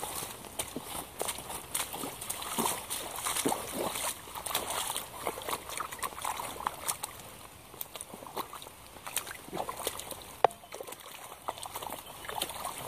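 Hunter rubber wellington boots sloshing and squelching through a muddy puddle in irregular wet steps. The splashing thins out past the middle, and there is one sharp click about ten and a half seconds in.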